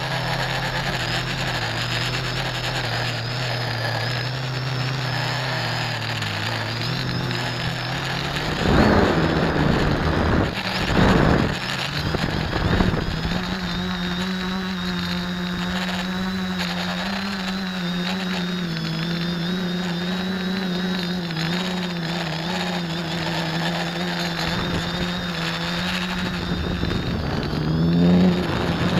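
Quadcopter's electric motors and propellers droning, heard from a camera mounted on the airframe. The hum steps up in pitch about nine seconds in, with two brief louder surges around nine and eleven seconds, then holds steady with a faint high whine above it and rises again near the end as the throttle changes.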